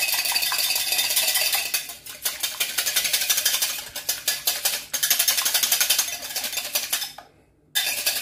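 Wire whisk beating an egg in a glass bowl: rapid, steady clicking and scraping of the wires against the glass. It comes in spells, with brief breaks and a half-second pause near the end before a last short burst.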